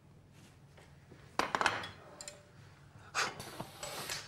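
Kitchen utensils scraping and clattering on a wooden serving board while a dish is plated, in two short bursts: one about a second and a half in, another about three seconds in.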